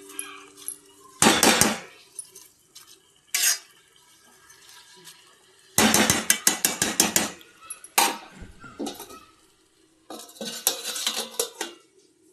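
A spoon stirring and scraping in a cooking pot, in several short bursts of rapid clinks and scrapes with pauses between.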